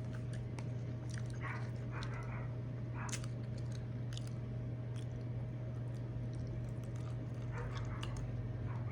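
Close-miked chewing and lip smacking, with scattered sharp clicks and a few short wet bursts, over a steady low hum.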